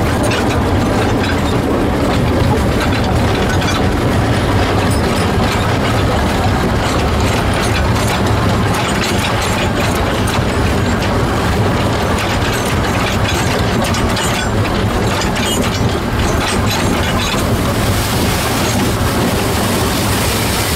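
The 1924 Wee Georgie Wood narrow-gauge steam locomotive running on 610 mm track, heard from its footplate. A steady low rumble of the engine and wheels mixes with a constant rattle of clicks. A hiss comes in near the end.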